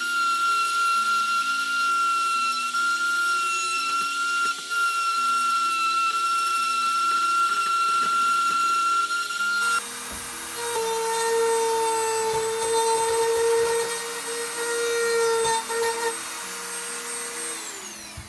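Dremel rotary tool whining at a steady high speed as it cuts the recess for a shield inlay into a bone knife handle scale. About ten seconds in, its pitch drops suddenly to a lower steady whine. Background music plays underneath.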